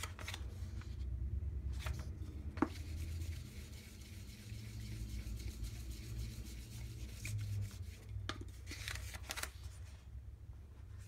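A hand baren rubbed in circles over the back of a sheet of paper on an inked plexiglass plate: a soft, continuous rubbing with a couple of light knocks early. Near the end the paper rustles as it is peeled back from the plate to check the print.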